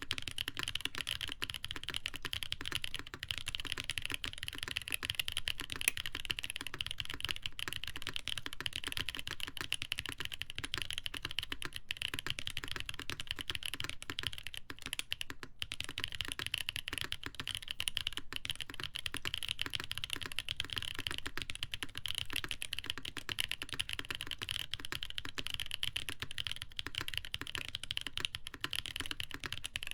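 Continuous fast typing on a custom mechanical keyboard with lubed Boba U4T tactile switches, a full polycarbonate plate, foam between plate and PCB and Cherry-profile ABS and PBT keycaps: a dense stream of key presses with one brief pause about halfway through.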